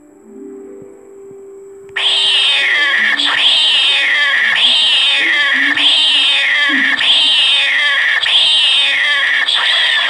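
A cat meowing, the same falling call repeated about once a second for some eight seconds as if looped. It starts abruptly about two seconds in and cuts off suddenly, over faint background music.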